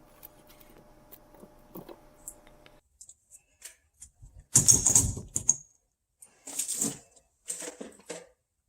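Irregular metallic clicks and clatter, as of tools and pipe fittings being handled, in three short clusters, the first about halfway in and the loudest.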